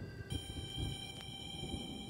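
Background music: held high notes that change about a quarter of a second in, over uneven low pulses.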